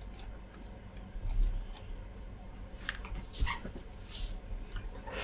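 Scattered clicks of a Logitech computer mouse with a few soft knocks on the bench, and a louder low thud about a second and a half in.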